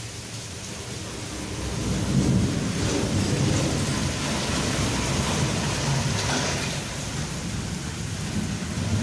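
Rain falling steadily, with a long roll of thunder that builds about two seconds in, rumbles on for several seconds and then eases.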